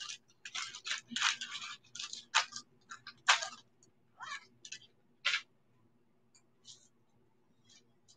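A quick run of short rustles and small clicks from jewelry being handled, which stops about five and a half seconds in. A faint steady hum remains after that.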